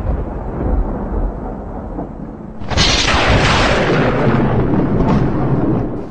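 Intro sound effect for an animated logo: a deep, noisy rumble, then about three seconds in a sudden loud hit that swells and holds for about three seconds before cutting off.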